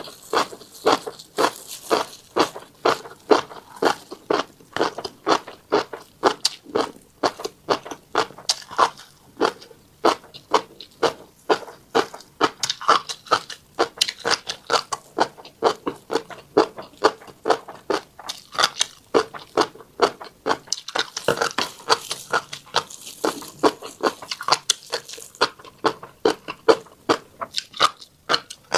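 Close-up chewing of a mouthful of tiny black seeds: a fast, even run of crisp crunches, about two to three a second.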